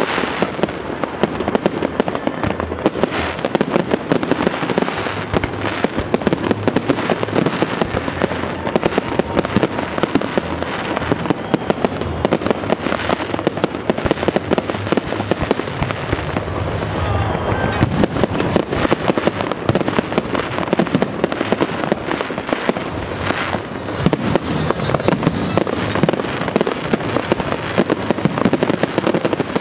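Aerial fireworks bursting in quick succession: a dense, loud, continuous run of overlapping bangs and crackles.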